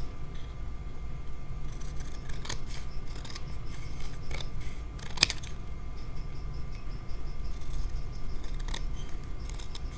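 Scissors cutting through watercolor paper, with scattered crisp snips as the blades close.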